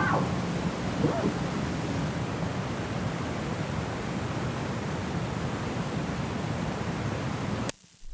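A steady rushing hiss of noise, like wind or surf, left running as the track's outro. Faint gliding tones fade out of it in the first second or so. It cuts off abruptly near the end, followed by a short click.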